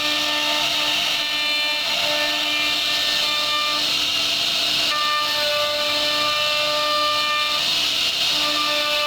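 CNC router spindle running with a steady high whine over a hiss of the bit cutting wood; the whine's overtones swell and fade slightly as the cut goes on.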